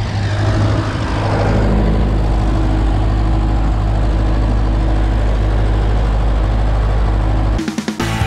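Tractor engine running steadily with a deep hum, cut off suddenly near the end as music starts.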